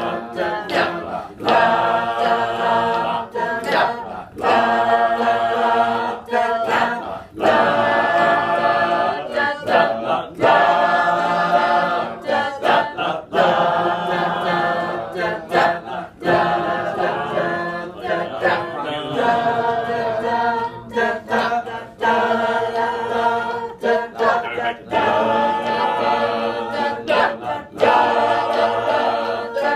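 A group of adult voices singing together a cappella on wordless syllables, holding chorded notes in a repeated rhythm with short breaks between phrases, as a warm-up exercise stepping from one note to the next.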